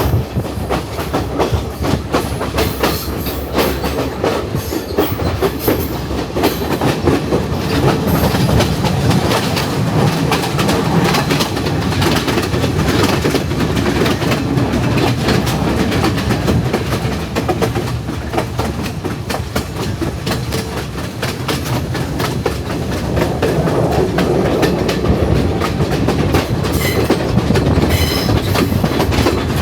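Passenger train running along the track, heard from a carriage window: steady rumble with rapid wheel clatter and carriage rattle.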